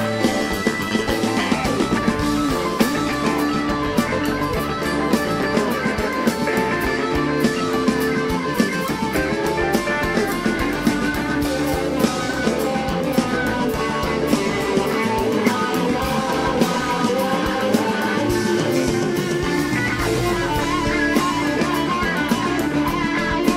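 Live rock band playing, led by guitar over a drum kit, with a steady stream of sharp drum hits.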